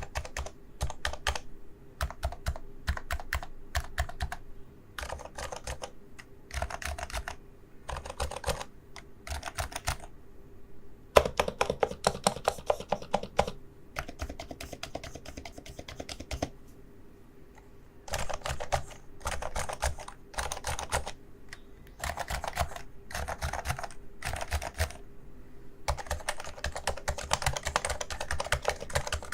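Typing on a Realforce Topre electro-capacitive keyboard: runs of quick keystrokes in short bursts with brief pauses between them, with a longer, heavier run of typing about 11 seconds in and another near the end.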